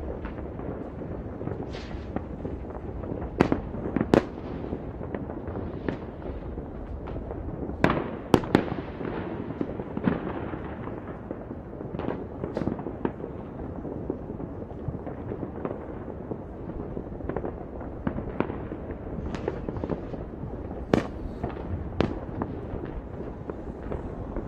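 New Year's Eve fireworks going off across the city: a continuous low rumble of distant bangs with sharper, louder reports at irregular intervals, the loudest cluster about eight seconds in.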